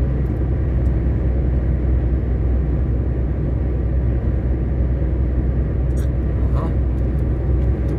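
Steady low drone of engine and tyre noise inside a vehicle's cab cruising at motorway speed on smooth new asphalt, with a few faint ticks near the end.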